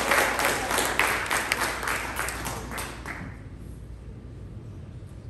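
Theatre audience applauding, the clapping thinning out and dying away about three seconds in.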